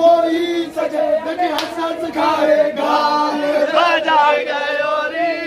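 A crowd singing a chant together in unison, many voices holding and sliding between notes, with one sharp crack about a second and a half in.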